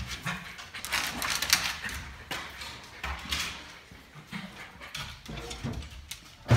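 A West Highland white terrier scrambling on a wooden box, its claws scraping and tapping on the boards in a run of irregular scuffling noises, with a sharp knock near the end.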